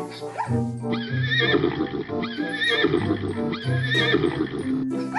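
Zebra calls, a repeated braying bark, over background music.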